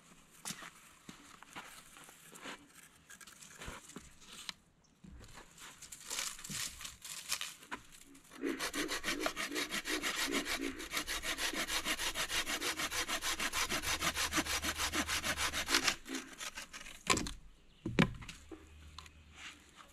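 Hand saw cutting through a dead tree branch braced on a stump, in quick, even back-and-forth strokes for about eight seconds in the middle. Before the sawing there is light rustling and handling of the branch, and a single sharp crack comes shortly after the sawing stops.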